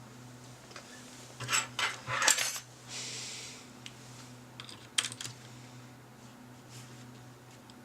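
A mechanical keyboard being handled: irregular plastic clicks and clatters, a short rubbing sound about three seconds in, and a single sharp click about five seconds in.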